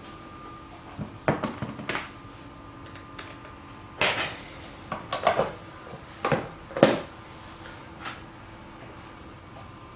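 Plastic parts of a vegetable chopper being handled and set down on a wooden tabletop: a series of irregular sharp knocks and clatters.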